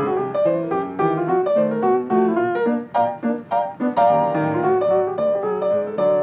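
Background music: a piano piece playing a melody over chords.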